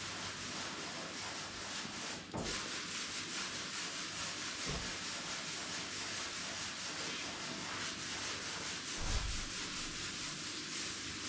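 Sanding wood, a steady abrasive rasp that breaks off briefly about two seconds in, with a low thud about nine seconds in.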